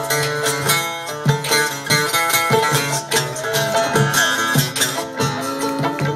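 Live acoustic music: a guitar playing a plucked, melodic solo over a steady low drone and a percussive beat.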